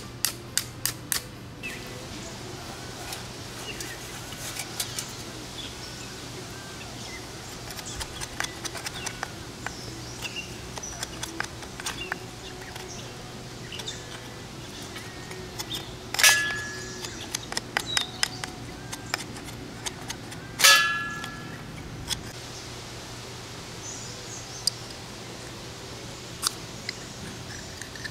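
Metal camp stove and fire-making gear being handled: a quick run of sharp clicks, scattered small clicks and knocks, and two louder metallic clanks that ring briefly, one about halfway through and another a few seconds later. Birds chirp faintly in the background.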